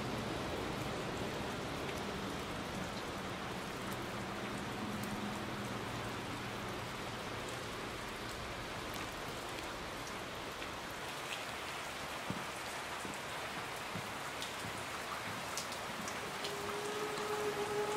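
Steady hissing noise like rain falling, with a faint low hum in the first few seconds and scattered light ticks. Near the end a steady pitched drone of several tones comes in.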